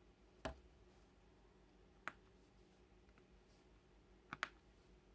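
Small sharp clicks from a diamond-painting drill pen picking up resin drills and pressing them onto the canvas. There is one about every second and a half, then a quick double click near the end, with near silence between.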